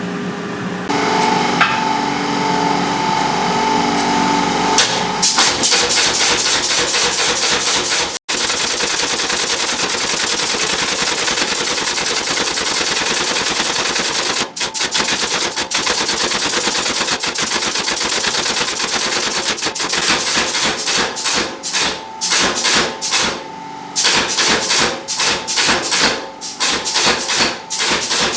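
Power hammer running with a steady hum, then hammering hot steel bar in a half-round swage with rapid, continuous blows, which later come in short bursts with pauses between.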